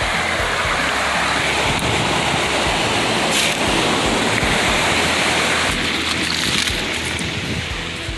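Surf washing up over a wet pebble beach: a steady rush of water running through the stones, easing off near the end.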